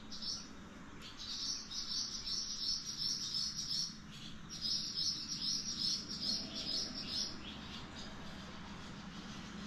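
A bird chirping in two runs of quick, repeated high notes, each about three seconds long, with a short break about four seconds in.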